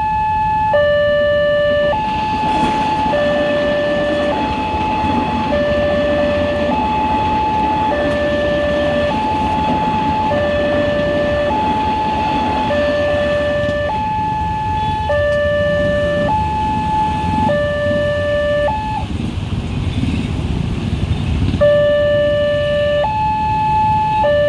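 Railway level-crossing warning siren sounding a two-tone hi-lo pattern, switching between a higher and a lower tone about every second. Near the end it breaks off for a couple of seconds and then starts again, over a steady background rumble of traffic.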